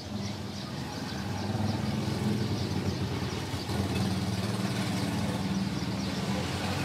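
A steady low mechanical hum, like an engine or motor running.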